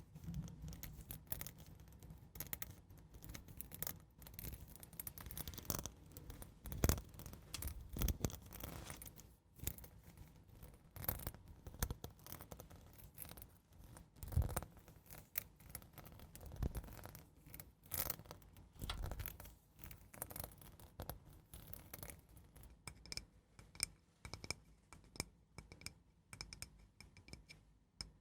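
Slow, gentle ASMR scratching close to the microphone: irregular scratchy strokes, some louder than others, with no steady rhythm.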